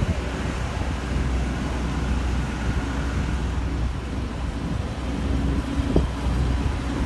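Wind buffeting a phone microphone over the steady low rumble of machinery running on an airport apron, with a faint steady hum and one brief bump near the end.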